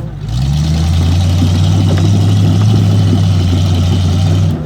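Off-road vehicle engine that revs up at the start, then runs loud and steady under load before dropping off near the end.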